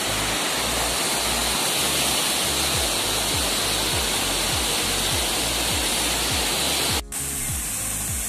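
Steady loud rush of a mountain stream and waterfall over rocks. From about three seconds in, a low thudding beat of background music runs underneath. The sound drops out for a moment near the end, then the water carries on a little duller.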